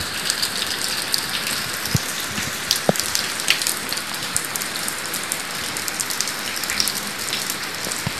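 Steady rain falling on a cobblestone street, a constant hiss with scattered sharp ticks of individual drops.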